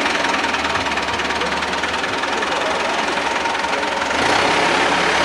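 An engine running with a steady noisy hiss, which gets louder about four seconds in and cuts off abruptly at the end.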